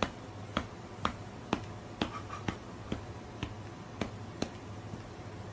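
A cat's paw slapping another cat: about ten sharp slaps, roughly two a second, over a steady low hum. The slaps stop about four and a half seconds in while the hum goes on.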